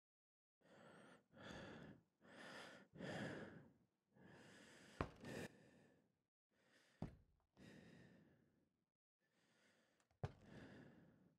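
A person breathing audibly, a run of about ten slow, airy breaths in and out. Three sharp clicks fall among them, about five, seven and ten seconds in.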